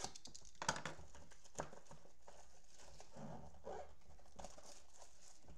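A shrink-wrapped trading-card blaster box being handled and unwrapped: a few sharp clicks and taps in the first two seconds, then soft rustling of plastic wrap.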